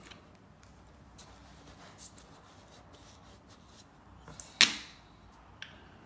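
Light handling taps and one sharp plastic clack about four and a half seconds in, as the washed vacuum-cleaner filter parts are handled on a tiled floor.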